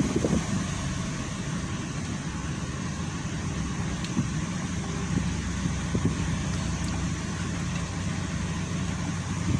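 2013 Toyota Vitz engine idling steadily while misfiring, one cylinder dead from a faulty cylinder 1 ignition coil. A couple of light knocks are heard, about a quarter second in and again about six seconds in.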